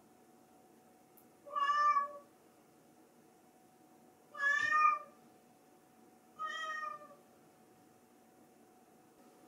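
Domestic cat meowing three times, each call about half a second long and a couple of seconds apart, the last one softer.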